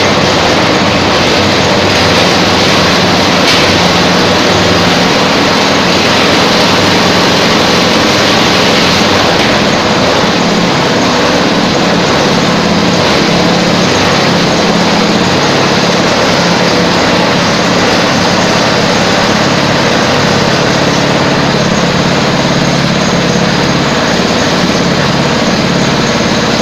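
Young areca nut peeling machine running, a loud, steady mechanical din with a low hum underneath.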